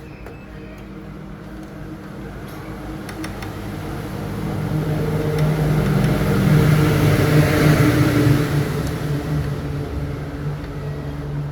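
An engine hum that grows steadily louder to a peak about seven to eight seconds in, then fades somewhat, like a motor vehicle passing close by.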